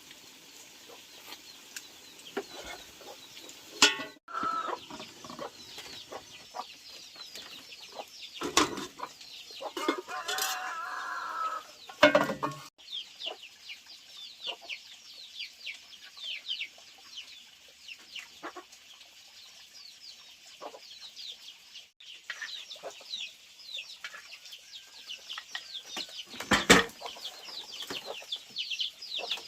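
Chickens clucking, with many short, high, falling chirps throughout. Several sharp knocks stand out, the loudest about four seconds in and near the end.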